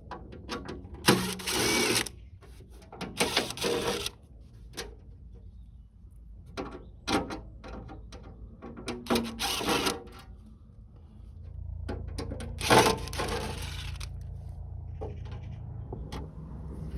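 Screws being undone from the metal case of an all-in-one diesel heater: scattered small clicks of screwdriver and screws, with a few short scraping rattles. A low steady hum comes in about two-thirds of the way through.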